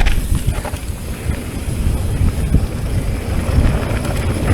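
Wind buffeting the microphone of a camera on a mountain bike rolling down a dirt trail: a low, uneven rumble with the bike's rattle mixed in.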